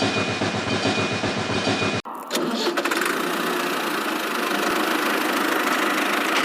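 An engine running with a quick, even pulse and a thin steady whine over it. About two seconds in it cuts off abruptly and a steadier engine-like running sound takes over.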